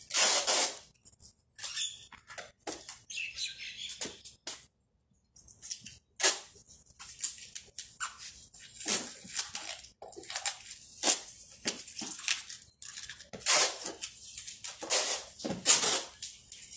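Packing tape being pulled off the roll in repeated short rips and pressed onto a cardboard box, with a brief pause about five seconds in.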